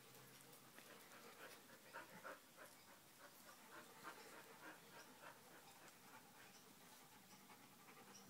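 Faint, quick panting of a dog, about three breaths a second.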